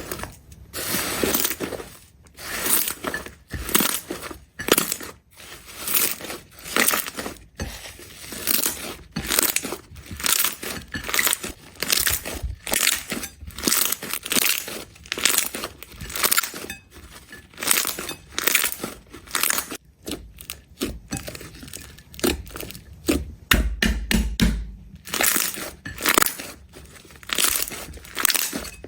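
Slime being pressed and squeezed by hand, making a quick crackly burst roughly once or twice a second, with a low thud about 24 seconds in.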